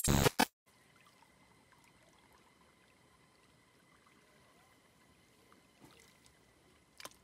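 A TV-static glitch transition effect: a loud crackling noise burst about half a second long. It is followed by near silence holding only a faint steady high tone and a short click near the end.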